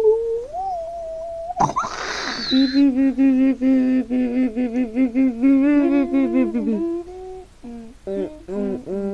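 A child making silly noises with the voice and mouth: a held hum that slides up in pitch, a short raspy, breathy blast about a second and a half in, then a long warbling hum that wobbles quickly up and down, breaking into short choppy vocal sounds near the end.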